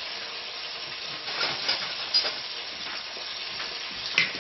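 A fork stirring chicken pieces in a wet sauce in a bowl, with a few sharp clinks against the bowl, the loudest near the end, over a steady hiss.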